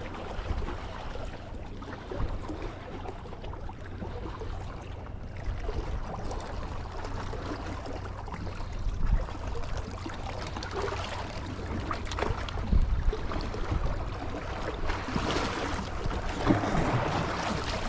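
Wind rumbling on the microphone over the wash of sea water, with a few brief knocks and handling noises near the end.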